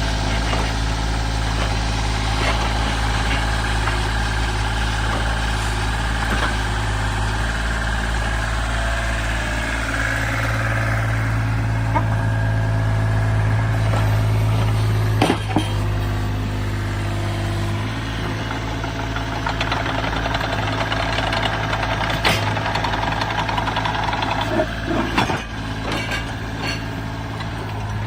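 Wacker Neuson EZ38 mini excavator's diesel engine running steadily, its note shifting a little a couple of times, with a few sharp knocks from the machine partway through and near the end.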